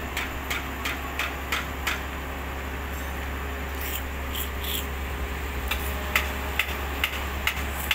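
Excavator's diesel engine running steadily with a low hum. A series of sharp clicks, about two to three a second, sits over it in the first two seconds and again near the end.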